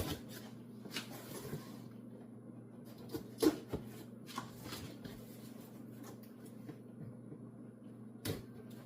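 A cardboard box being opened and handled: scattered knocks, scrapes and rustles, the loudest knock about three and a half seconds in, over a steady low hum.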